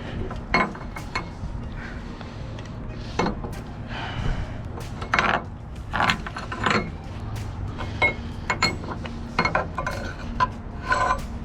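Irregular metal clanks and clinks of tie-down hardware being handled, about fifteen sharp knocks, some of them briefly ringing, over a steady low hum.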